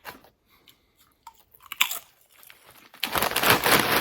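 Doritos Flamin' Hot Limon tortilla chips being chewed with crisp crunches, faint at first, then a loud, dense crackling starts about three seconds in.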